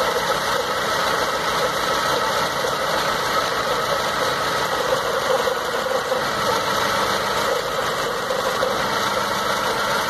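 2006 Dodge Stratus four-cylinder engine idling unevenly with a misfire while the number-four spark plug wire is pulled off; the engine falls off, showing that cylinder is firing properly.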